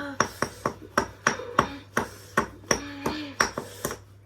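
Washing machine being wrecked: a fast run of hard knocks and bangs, roughly three or four a second, over a steady low hum.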